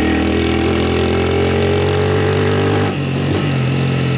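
Honda CG 160 Start's single-cylinder four-stroke engine pulling under throttle, its pitch rising steadily, then dropping about three seconds in and running on at a lower, steady pitch.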